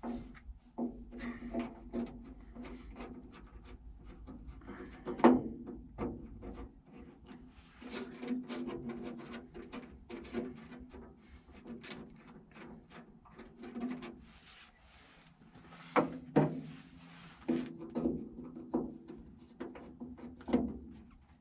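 Screws being backed out of an M35A2 truck's door latch with a large Phillips screwdriver: small clicks and scraping of metal on metal, with a few sharper knocks, the loudest about 5 seconds in and another about 16 seconds in.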